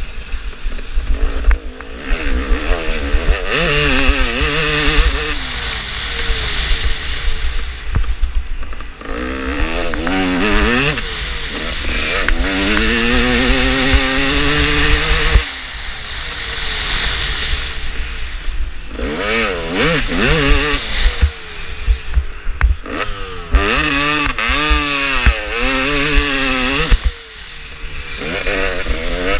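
Dirt bike engine revving up again and again as it pulls through the gears and accelerates, then dropping away when the throttle closes for shifts and corners. A steady wind rumble on the helmet-mounted microphone runs underneath.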